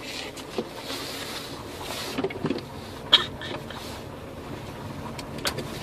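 Car running and rolling slowly, heard from inside the cabin, with a few short knocks and a sharp click about three seconds in.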